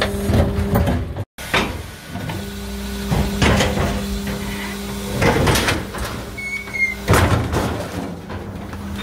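Electric garbage truck's rear-loader packer running: a steady hydraulic-pump hum with clanks and thumps as the compaction blade works the bags in the hopper. The hum drops out about seven seconds in and picks up again near the end.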